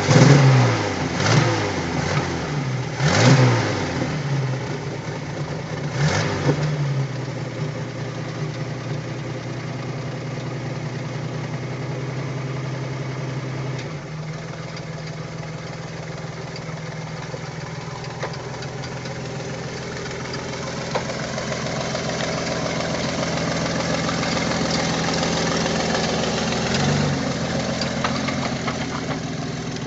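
Homemade tractor's engine revved in several short rising-and-falling bursts over the first few seconds as it pulls away, then running steadily as it drives. It drops a little about halfway and builds again toward the end.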